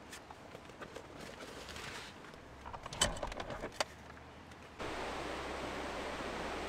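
Outdoor gear being handled at a car's open hatchback: rustling, with two sharp clicks about three and four seconds in as a tripod is lifted out. About five seconds in, the sound cuts abruptly to a steady rush of flowing water.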